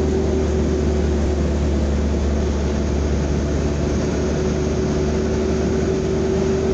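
A 3-ton pickup truck driving, its engine and road noise a steady low drone with a constant higher hum.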